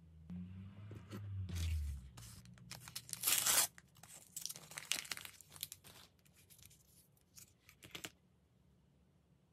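Small plastic and foil toy packaging being torn open and crinkled by hand, in a series of short tears and crinkles, the loudest about three and a half seconds in.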